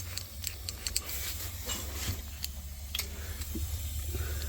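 Scattered light clicks and taps of hands and tools working on the refrigerator's tubing, over a steady low hum.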